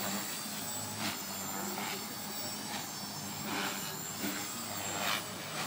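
Align T-Rex 450 electric RC helicopter in flight: a steady hum from its motor and rotors with a thin high whine, and short louder swishes about once a second.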